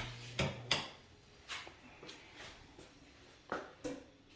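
A handful of sharp knocks and clicks in an empty room, several in the first second and two more near the end, with a brief low hum at the start.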